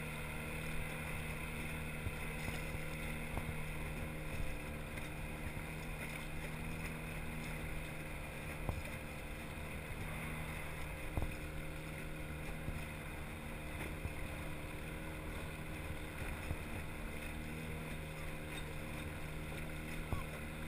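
Small outboard motor on an inflatable boat running steadily at low speed, a constant low hum over water and wind noise, with a few light knocks against the hull.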